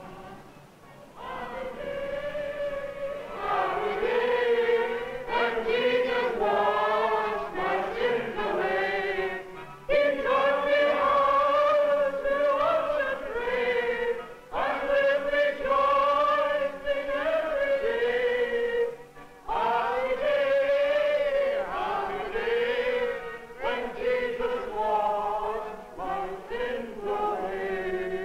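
Many voices singing a slow hymn together in church, in long held phrases with short pauses for breath.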